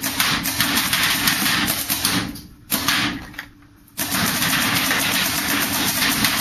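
Smart Parts Impulse paintball marker firing rapid strings of shots, with the paintballs smacking into a metal roller garage door. A long string and a short burst, a gap of about a second, then another long string from about four seconds in.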